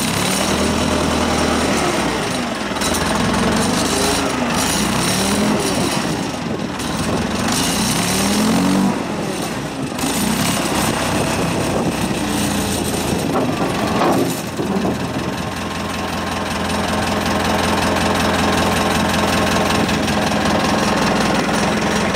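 Volvo BM 642 wheel loader's diesel engine running, its speed rising and falling several times between about two and ten seconds in, then settling to a steady run.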